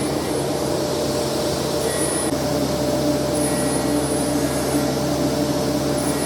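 A workshop power tool or dust extractor runs steadily, a continuous motor whine and rushing noise with no let-up.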